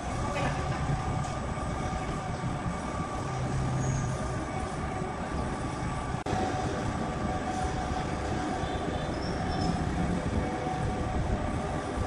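Sawmill machinery running steadily: a continuous low rumble with a steady whine above it.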